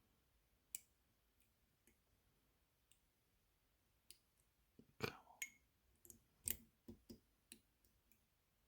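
Light metallic clicks of a lock pick and tensioner working the pins of a small dimple camlock. A few scattered clicks come first, then a quicker run of them in the second half.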